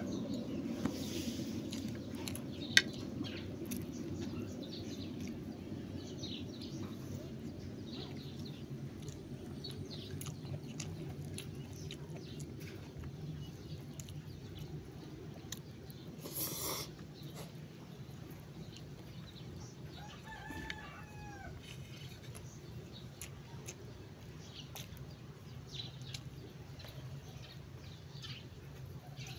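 Steady low rumble with scattered soft clicks of someone eating with his hand, a sharp click about three seconds in, a brief hiss about sixteen seconds in, and a short bird call about twenty seconds in.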